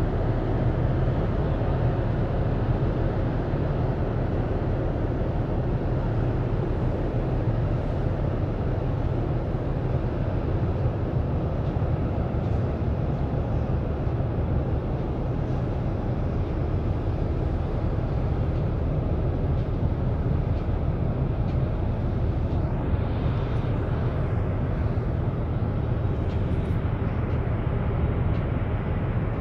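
Low, steady rumble of a large container ship's engine and propeller as the ship passes close by.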